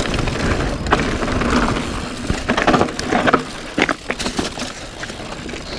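Mountain bike riding fast down a rocky dirt trail: tyres rushing over dirt and stones, with frequent rattling knocks from the bike over the bumps. Wind buffets the microphone for the first couple of seconds, then eases.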